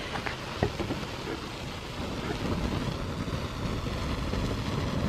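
Acetone-soaked polystyrene slime burning in open flames: a steady low rushing rumble with a few sharp crackles in the first second, growing a little louder about two seconds in.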